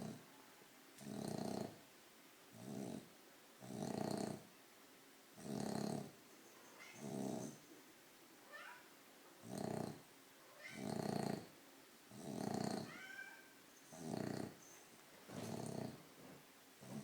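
French bulldogs snoring in deep sleep, a snore about every second and a half, some with a faint rising squeaky whistle.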